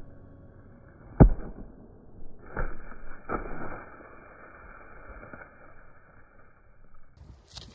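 A judo-pointed arrow hits a plastic toy dinosaur target on a log with one sharp smack about a second in. Two softer knocks and rustling in dry bracken follow as the target and arrow tumble off.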